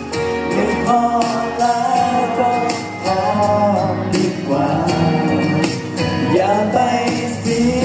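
Male vocalists singing a Thai pop song live into handheld microphones over backing music, amplified through a stage sound system.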